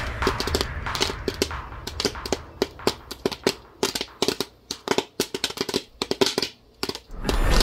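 Popcorn kernels popping in a pot: irregular sharp pops, several a second, thinning out toward the end.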